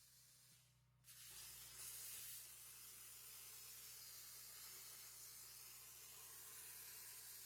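Faint, steady hiss of a CNC plasma table's cutting torch, its air plasma jet cutting sheet metal, starting abruptly about a second in over a low steady hum.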